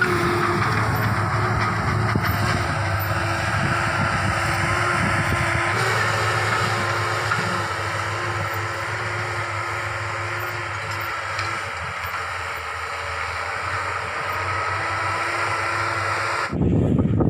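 John Deere farm tractor's diesel engine running steadily under load as it pulls a disc harrow through ploughed soil, growing a little fainter as it moves away. The sound breaks off suddenly near the end.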